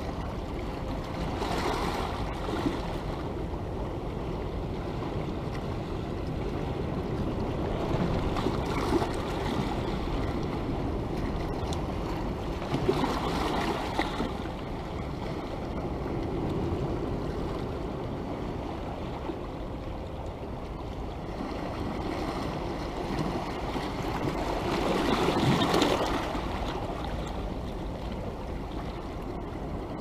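Sea waves washing against a rocky shore: a continuous hiss of surf that swells into louder surges every few seconds, the largest late on.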